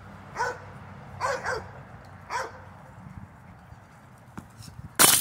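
Dog barking four short times during ball play, each bark falling in pitch, with a loud bump at the very end.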